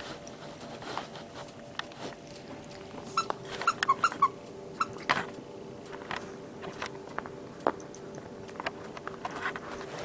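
A Boston Terrier puppy biting a squeaky dog toy gives a quick run of short squeaks about three to four seconds in. Scattered soft clicks and taps come from the puppy handling the toy.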